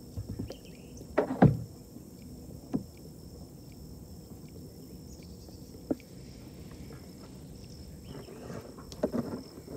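Knocks and bumps against a kayak's hull, the loudest a short cluster just over a second in, then a few lighter single clicks and more handling near the end.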